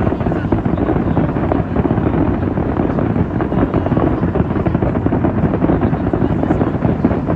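Fireworks going off in a dense, unbroken barrage of rapid bursts and crackling, loud and continuous.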